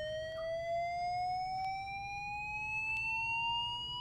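LifePak 15 monitor/defibrillator charging to 360 joules: a steady electronic tone that rises slowly in pitch as the charge builds.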